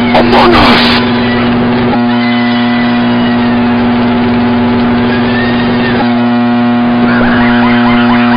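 Microwave oven running: a loud, steady electrical hum, with a brief loud noisy burst right at the start.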